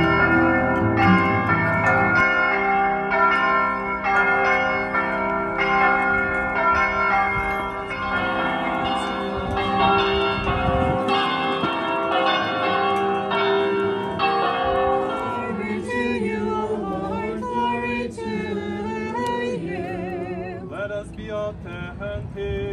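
Bells ringing in a run of overlapping strokes, each one sustaining and ringing on into the next. About two-thirds of the way in, the bells give way to voices singing.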